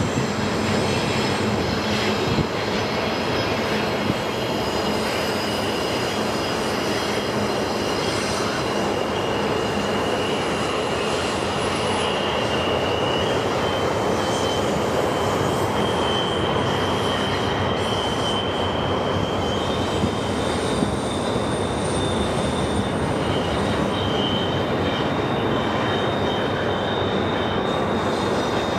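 Canadian Pacific double-stack intermodal freight train rolling steadily around a curve. Its wheels squeal in thin, high tones that drift in pitch and come and go over the continuous rumble of the passing cars.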